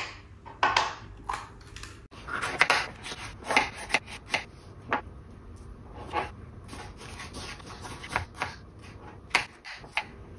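A kitchen knife cutting a red bell pepper on a plastic chopping board: irregular crisp cuts and taps of the blade on the board.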